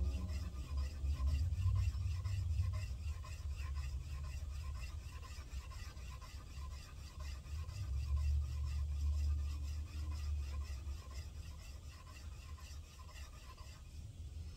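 Steel vise jaw being rubbed back and forth on a flat stone to lap its face flat: a rhythmic scraping, several strokes a second. A low rumble sits underneath, strongest in the first few seconds and again about eight seconds in.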